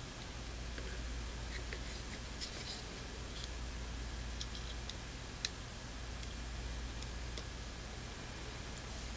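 Faint scattered clicks and light rustling from Kelvin test clips being handled and clamped onto a small capacitor's leads, with the sharpest click about five seconds in, over a steady low hum.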